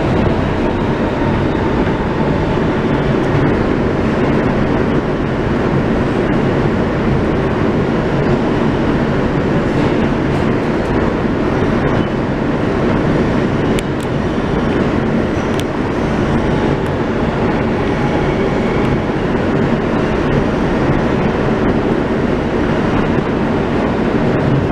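Inside an R160B Siemens subway car running between stations: a steady loud rumble of wheels on rail, with a few faint clicks about ten to sixteen seconds in.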